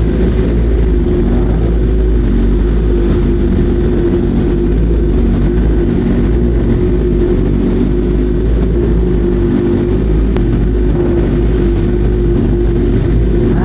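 BMW M1000RR's inline-four engine running at a steady engine speed, an even, unbroken drone.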